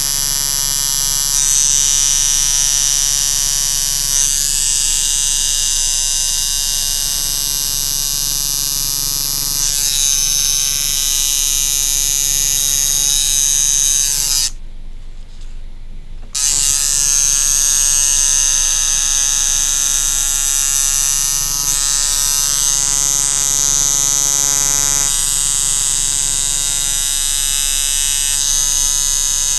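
Coil tattoo machine buzzing steadily while lining a tattoo freehand on skin. It stops for about two seconds around the middle, then starts up again.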